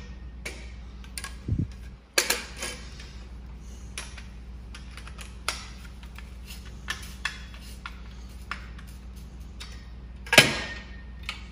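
Light metallic clicks and ticks of a screwdriver working the set screw in an aluminium flagpole's pulley head, with the parts knocking together. There are louder clinks about two seconds in and near the end, the last one ringing briefly.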